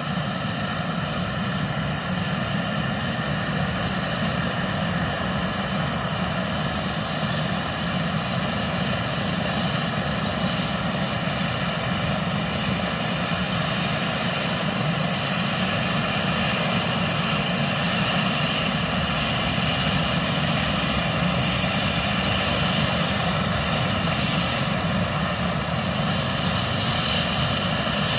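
Airbus H145 helicopter's twin turboshaft engines and main rotor running on the ground during start-up: a steady whir with a high turbine whine, growing gradually louder.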